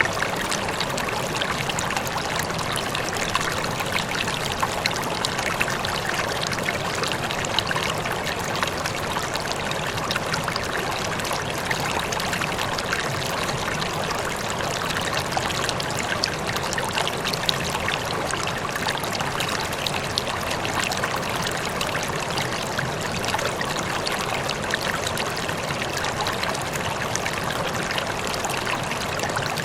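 Water running and splashing steadily, like a stream or small cascade, with fine trickling and splashing detail.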